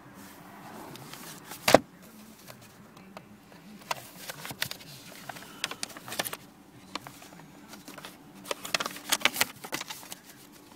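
A paper envelope being handled: rustling and crackling with many short irregular clicks, and one sharp knock a little under two seconds in. A faint steady low hum runs underneath.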